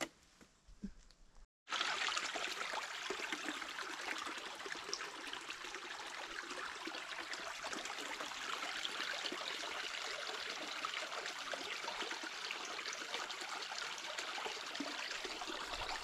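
Running water of a small stream, a steady rush that starts abruptly about a second and a half in.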